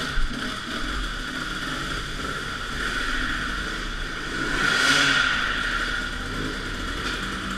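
A 250 cc two-stroke enduro motorcycle engine running under load, its revs rising and falling, loudest about five seconds in.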